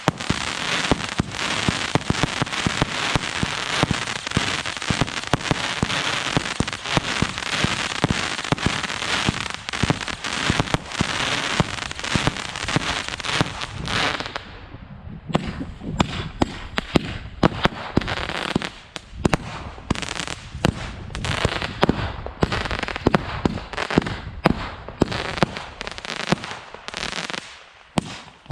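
Black Cat After Midnight single-ignition firework barrage firing. For about the first half it gives a dense, continuous crackle; from about halfway it changes to a rapid run of separate sharp shot and burst reports.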